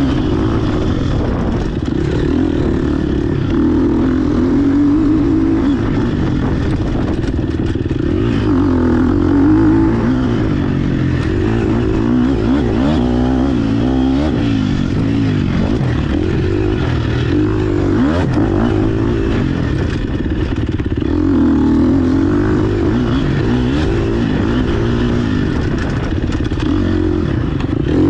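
GasGas EX 250F four-stroke single-cylinder dirt bike engine heard close up from the handlebar, its pitch rising and falling continuously as the throttle is opened and closed along a trail.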